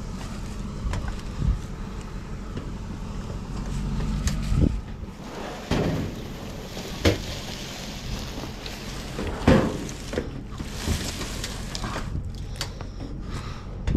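A large flat scrap item with metal trim being dragged and pushed over grass and concrete, with several sharp knocks and scrapes, over a steady low engine idle hum.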